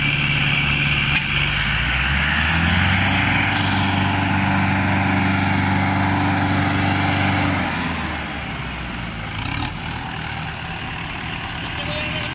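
Diesel engines of two Mahindra tractors, chained in tandem, running hard as they try to pull a soil-loaded trolley out of a rut. About eight seconds in the engines drop back and get quieter.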